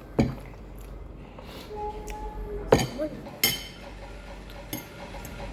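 Tableware clinking at a meal: about five separate sharp clinks and knocks, the loudest a little under three seconds in.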